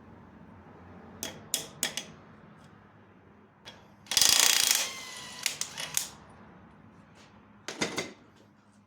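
Ratchet wrench clicking and metal tool clinks while a nut on a motorcycle's rear wheel is worked loose, with the loudest burst of rapid ratcheting about four seconds in.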